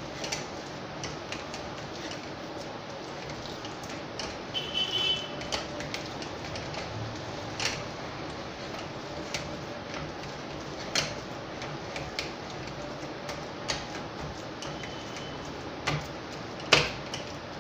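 Hands mixing mashed raw banana with gram flour and spices in a steel bowl: irregular light clicks and taps of fingers against the metal over a steady background hiss, with a couple of sharper knocks near the end.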